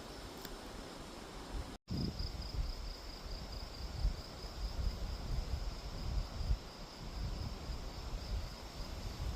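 Insects trilling in a steady, high, finely pulsing chorus, over an uneven low rumble on the microphone. The sound cuts out completely for a moment about two seconds in.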